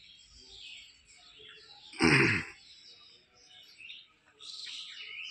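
Birds chirping in the surrounding trees, busier near the end. About two seconds in comes one short, loud, voice-like burst lasting about half a second, the loudest sound here.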